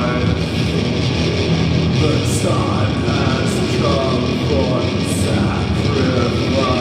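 Live doom metal played loud by a full band: heavily distorted guitars, bass and drums in a dense, unbroken wall of sound.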